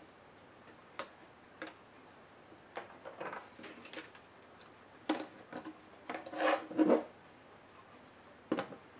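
Handling noise from a laptop motherboard being worked free of its plastic bottom case and lifted out: scattered light clicks and taps, then louder rubbing and scraping of circuit board against plastic about six to seven seconds in.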